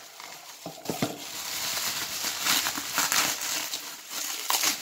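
Plastic bubble wrap crinkling and rustling as it is handled and pulled out of a cardboard box, with a few sharper crackles about a second in.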